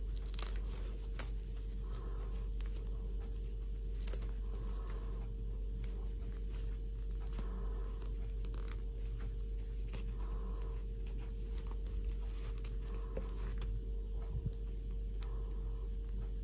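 Fabric rustling and small plastic clicks as a synthetic doll dress is pulled onto a fashion doll, with two sharper clicks about a second in, over a steady low electrical hum.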